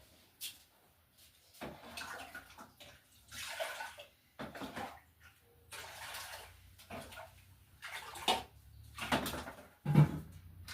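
Water being poured and splashed into a small sufuria cooking pot in a series of short, uneven pours, with a sharp knock near the end.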